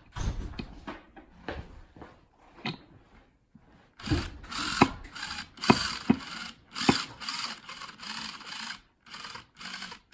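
DeWalt hammer drill driving a screw into a cabinet door in short stop-start bursts of the trigger, from about four seconds in. Before that there are small clicks and knocks as the screw and drill are set in place.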